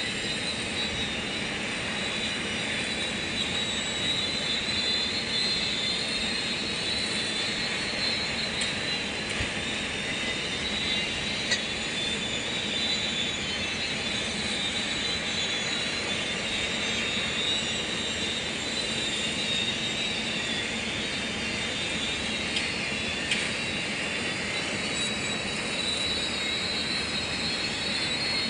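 JCB 3DX backhoe loader's diesel engine running steadily under work, with a steady high whine over it and a couple of sharp clicks about a third and three quarters of the way through.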